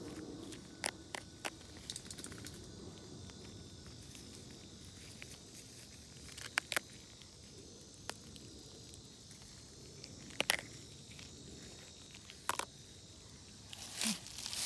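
Quiet forest background with a faint steady hiss of insects. A scattering of short sharp clicks and snaps about every few seconds comes from hands handling and picking wild oyster mushrooms.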